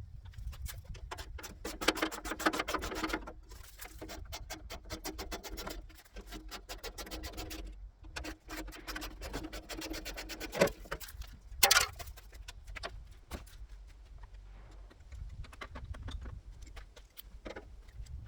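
Hand tools on car body bolts: spells of rapid ratchet-like clicking, with two sharp metal clanks about two-thirds of the way through.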